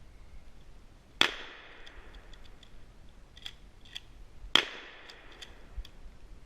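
Shotgun firing twice, about three and a half seconds apart, each shot followed by a ringing tail and a few fainter sharp clicks.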